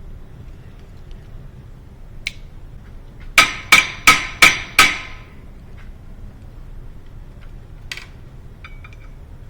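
A hammer striking a hand impact driver five times in quick succession, each blow ringing metallically, to break loose a stuck screw.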